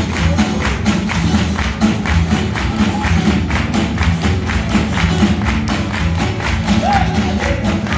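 Live rockabilly band playing: drum kit keeping a fast, steady beat over upright double bass and strummed acoustic guitar, heard from the audience.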